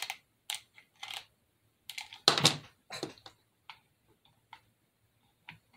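Hot glue gun and small craft pieces being handled on a tabletop: a string of light clicks and taps, with one louder clatter about two seconds in.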